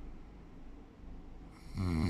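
A sleeping person snoring: a quiet pause between breaths, then a loud, low, rattling snore begins near the end.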